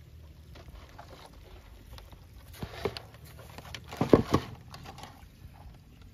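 Freshly caught catfish flopping in a plastic tub: scattered light taps and slaps, with a short cluster of louder thumps about four seconds in.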